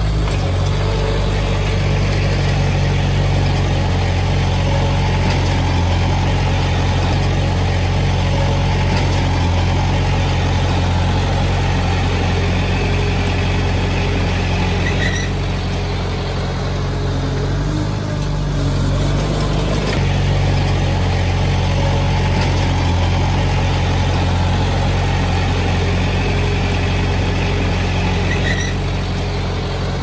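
Diesel engine of a Komatsu D20P small crawler bulldozer running steadily as it works, pushing fill soil, easing off briefly twice.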